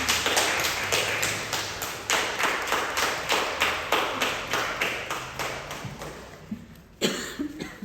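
A rapid, even series of sharp taps, about three to four a second, fading away over about six seconds, then one louder knock near the end.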